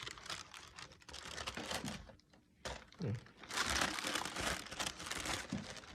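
Packaging crinkling and rustling as a shoebox is opened and its contents handled, with a short lull about two seconds in and louder crinkling in the second half.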